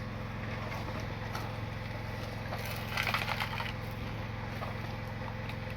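Mini excavator's motor running with a steady low hum. About three seconds in comes a short burst of gritty crunching and scraping as it digs into sand.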